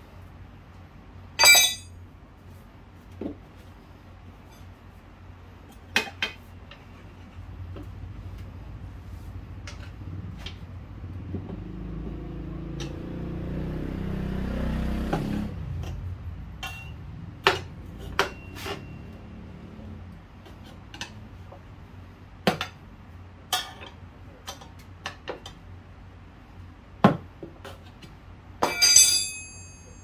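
Metal tools clinking and knocking against the scooter's wheel during a manual tire change, scattered sharp clicks with the loudest a second or so in and a ringing cluster near the end. A low rumble swells and fades around the middle.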